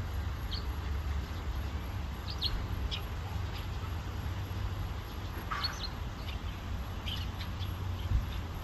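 Short, high bird chirps, scattered irregularly, over a steady low rumble.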